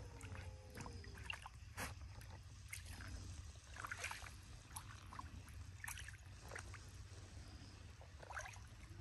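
A gray wolf's paws splashing and tapping in shallow water lying on lake ice, a run of small, irregular splashes and clicks. Two wolf howls, falling in pitch, trail off about a second in, over a steady low rumble.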